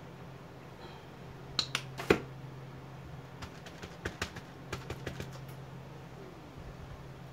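A scatter of short, sharp clicks and taps from handling paint supplies while loading a brush with paint, the loudest about two seconds in and a quicker run of them in the middle, over a steady low hum.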